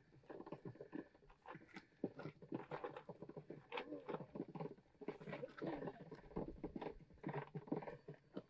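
Faint, irregular light clicks and taps, a few each second, like close handling noise.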